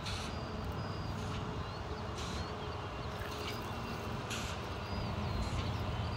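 Outdoor lakeside ambience: wind buffeting the microphone in an uneven low rumble, with small birds chirping now and then.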